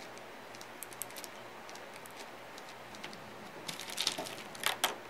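Fingertips tapping and rubbing on a thin plastic stencil laid over a waxed board: a few faint scattered taps, then a short flurry of louder clicks and rustles about four seconds in.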